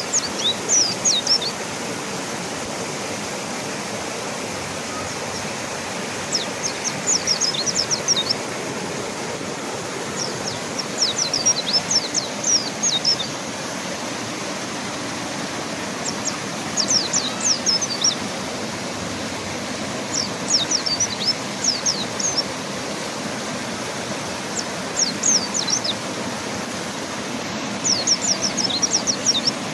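Mountain white-eye singing short phrases of quick, high, downward-slurred notes, each a second or two long, repeated about every three to five seconds, over the steady rush of river water.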